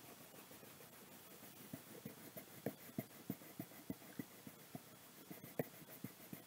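Faint, short strokes of coloring on paper, about three a second at an uneven pace, starting around two seconds in.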